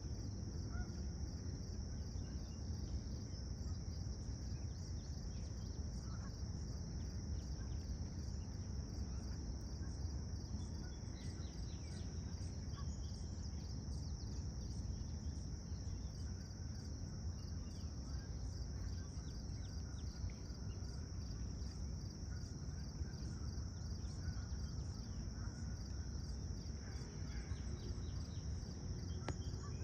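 Outdoor summer insect chorus: a steady, high-pitched continuous trilling drone over a low steady rumble.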